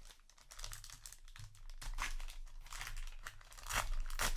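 Foil trading-card booster pack wrapper crinkling as it is handled, with a louder crackle near the end.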